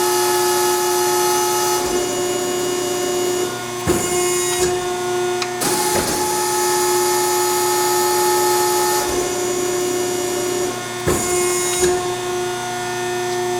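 Wysong THS60-72 hydraulic press brake running under foot-pedal control: the hydraulic pump gives a steady whine while the ram is cycled, with a hiss that starts and stops a few times and a few clunks, one about four seconds in, one near six seconds, and two near the end.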